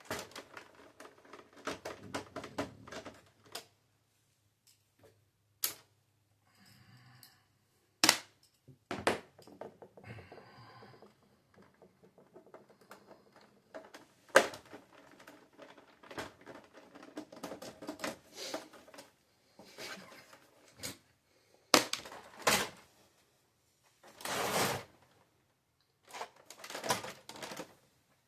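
Plastic printer casing being taken apart by hand: irregular clicks, taps and knocks of parts and screws, with a longer scraping noise near the end.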